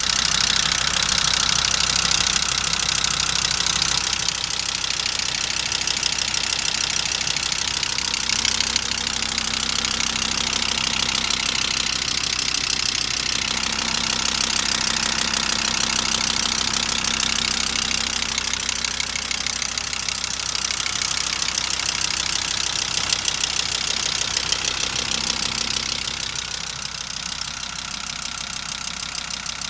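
2.5-litre engine idling steadily with a clear, ringing knock running through it.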